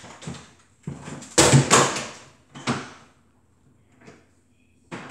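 Clattering knocks as things are put away in an open refrigerator, the loudest about a second and a half in, with one more knock near the end.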